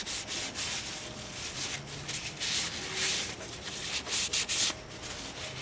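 A rag rubbed back and forth over a greased roller rocker arm clamped in a bench vise, wiping off excess grease: a run of irregular scrubbing strokes of uneven length.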